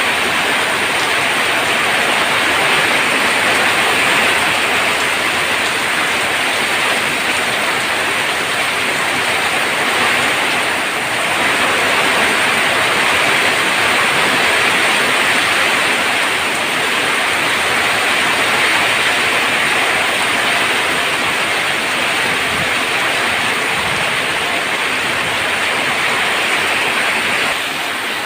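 Heavy monsoon rain drumming steadily on a tin roof, a dense unbroken hiss of drops that eases slightly near the end.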